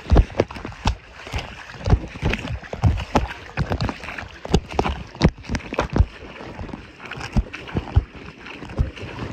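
Water splashing and sloshing close by in a river current, with many irregular knocks and splashes.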